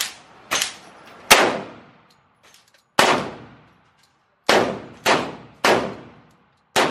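Pistol shots from a Glock 40 in 10mm Auto, fired singly at an uneven pace, about eight in all, each trailing off in an echo.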